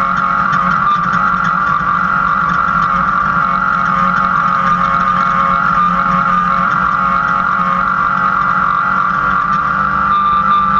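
Off-road race truck engine running hard at steady revs, heard from inside the cab, with a steady high whine over it. Near the end a higher whine joins and it gets a little louder.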